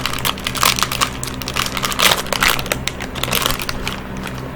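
Plastic bag of soft plastic fishing baits crinkling and rustling in irregular bursts as it is handled and a bait is taken out.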